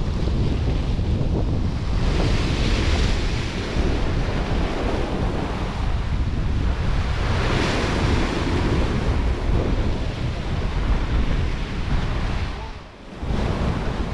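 Wind buffeting the microphone over the wash of waves, the hiss swelling and easing twice; the noise drops away briefly near the end.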